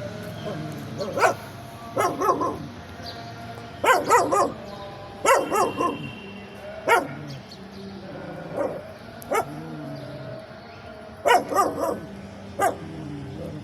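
A dog hiding under a car barking in short, irregularly spaced bursts of one to three barks each, about nine bursts in all.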